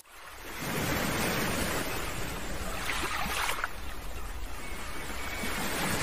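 Small waves breaking and washing up over the sand at the water's edge: a steady rush of surf that rises in over the first second and swells about three seconds in.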